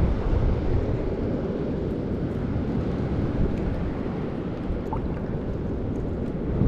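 Wind rumbling and buffeting on the microphone over the steady wash of surf on the beach.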